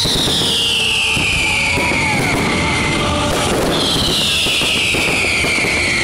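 Fireworks display: two long whistling shells, each whistle falling steadily in pitch over two to three seconds, the second starting about halfway through. Underneath is a loud, dense din of bangs and crackle, with music mixed in.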